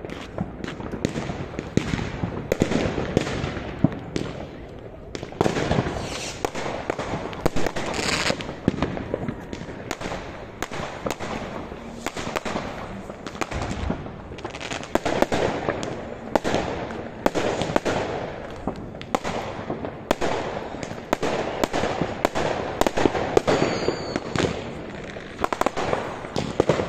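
A continuous barrage of fireworks and firecrackers, with sharp bangs and crackles going off one after another, several a second, without let-up. A brief high whistle comes near the end.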